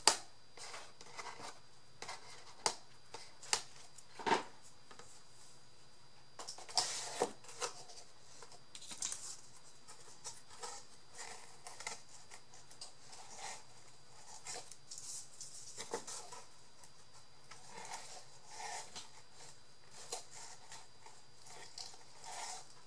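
Paper and craft tools being handled: intermittent rustling of paper with scattered sharp clicks and taps, a cluster of clicks in the first few seconds.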